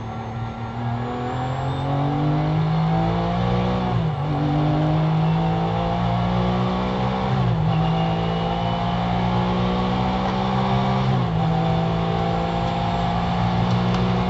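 Porsche GT3 race car's flat-six engine at full throttle, heard from inside the cockpit, revving up through the gears. The pitch climbs steadily and drops briefly at three upshifts, about 4, 7.5 and 11 seconds in.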